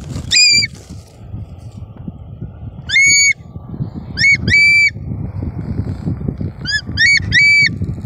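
A hawk calling: short, high whistled calls that rise quickly and then hold level. They come in clusters: one just after the start, one about three seconds in, a quick pair around four and a half seconds, and three in a row near seven seconds.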